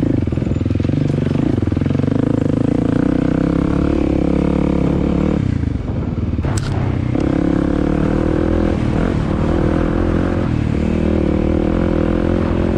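Dirt bike engine running under way, its pitch rising and falling with the throttle. It eases off briefly about halfway through, followed by a single sharp click.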